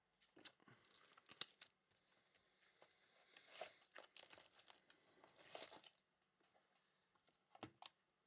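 Faint rustling, crinkling and light clicking of trading cards and plastic card holders being handled, in scattered bursts, with two small ticks near the end.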